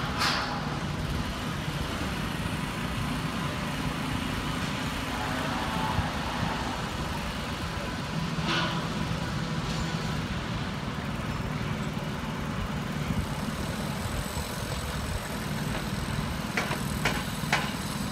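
Heavy machinery engine running steadily at a construction site, with a few short sharp clicks or knocks about halfway through and near the end.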